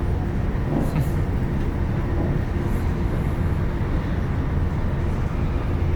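Passenger train carriage running: a steady low rumble with a faint constant hum, and a brief click about a second in.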